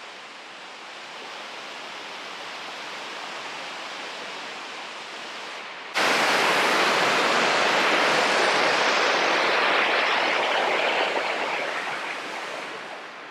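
Waterfall rushing over rocks: a steady hiss of falling water, softer at first, then much louder from about halfway through, where it jumps in suddenly, easing off gradually near the end.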